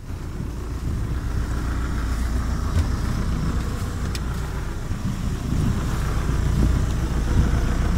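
A motorboat's engine running with a steady low rumble that comes up in level right at the start, as the boat moves toward the dolphins, with wind and water noise over it.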